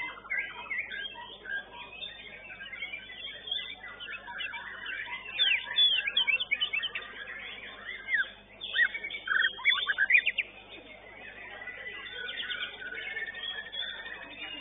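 White-rumped shama (murai batu) singing: a fast, varied run of whistled notes and sharp rising and falling glides, loudest in two bursts around the middle.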